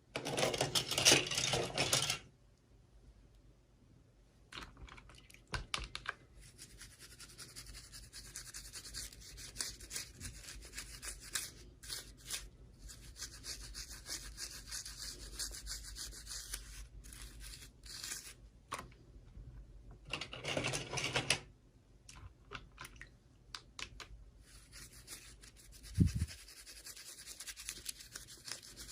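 Hands handling and opening toy packaging: rustling, rubbing and scratching with scattered small clicks. There are two louder bursts of rustling, one at the start and one about twenty seconds in.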